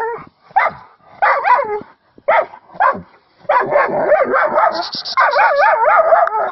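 A dog giving a run of short, high yelps, then two longer wavering cries in the second half.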